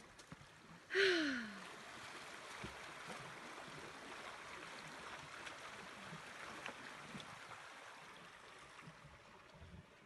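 Small creek running steadily through snow, a soft even rush of water. About a second in, a short breathy, sigh-like voice falls in pitch.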